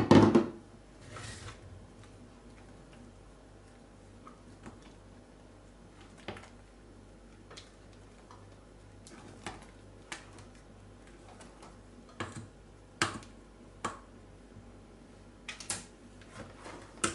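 Spatula scraping and tapping against a glass bowl and a stainless steel pot while whipped cream is spooned into pastry cream: scattered sharp clicks and knocks, the loudest right at the start and several more about twelve to sixteen seconds in.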